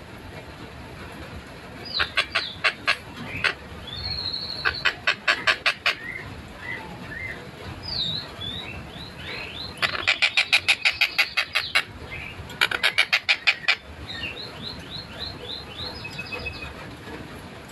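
A tengkek buto, a kingfisher, calling in fast bursts of sharp repeated notes, about ten a second. Each burst lasts one to two seconds, four in all, with short falling whistles in the pauses between.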